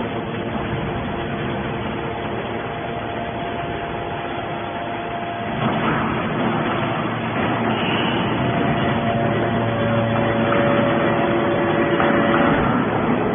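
Hydraulic steel can baler running: a dense mechanical noise with steady whining tones that shift in pitch every few seconds, getting a little louder about six seconds in.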